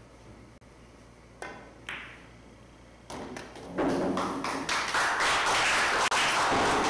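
Pool cue tapping the cue ball, then a sharp clack of ball on ball with a short ring. Then a pocketed ball drops in and rattles and rolls through the table's ball-return channel, a loud rumbling clatter lasting several seconds.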